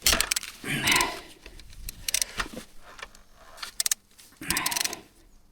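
Brief muttered words with a few sharp metallic clinks and rattles of hand tools between them.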